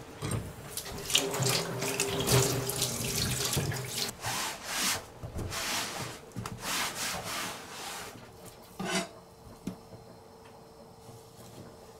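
Tap water running and splashing over a plastic cutting board into a stainless-steel kitchen sink as the board is rinsed. The flow is steady for the first few seconds, then comes and goes in splashes, and stops about nine seconds in, leaving a faint steady hum.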